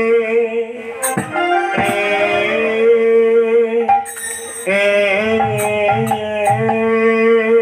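A man sings a Bengali devotional kirtan line in long, drawn-out held notes, over musical accompaniment with occasional drum strokes and jingling percussion.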